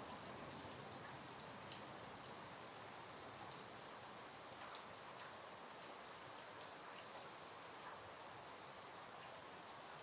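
Steady light rain falling, an even hiss with scattered single drips ticking close by.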